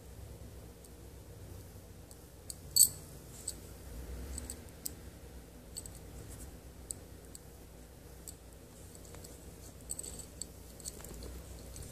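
Scattered small clicks and taps as fingers press a glued paper photo into a metal bottle cap on a beaded keychain, with one sharper click about three seconds in.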